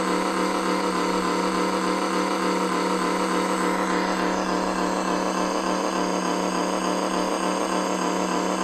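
Synthesized RC-car engine sound from a homemade Arduino sound kit, played through its small speaker and 3 W amplifier, running steadily at a constant idle pitch.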